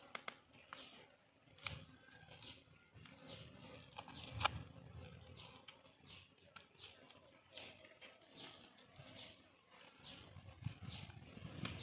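A bird calling over and over in short falling chirps, about one or two a second. Under it is soft handling noise from hands pulling apart raw chicken, and a single sharp click about four and a half seconds in is the loudest sound.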